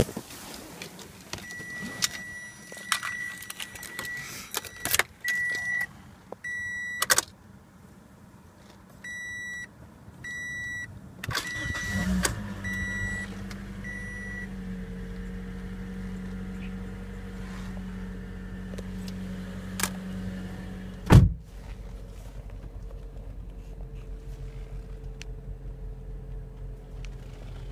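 Interior warning chime beeping repeatedly among clicks of keys and controls. About 12 s in, a 2014 Toyota Corolla's 1.8-litre four-cylinder engine starts cold and runs at a raised fast idle. A single sharp knock comes about 21 s in, after which the idle hum settles slightly lower.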